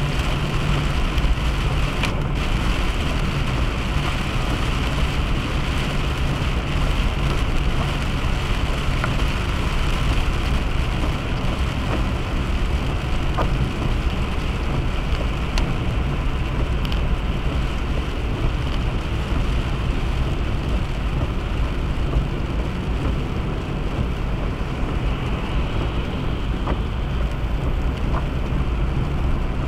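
Steady road noise of a car driving along a highway: a constant low rumble with an even hiss over it.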